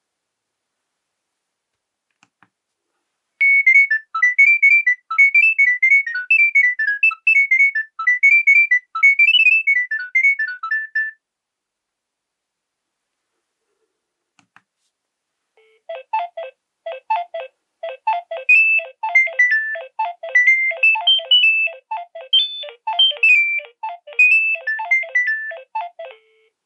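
Two Nokia 7210 polyphonic ringtones, one after the other. First comes a quick, high melody lasting about eight seconds. After a pause with a couple of faint clicks, a second tune plays for about ten seconds, with a repeating bass line under its melody.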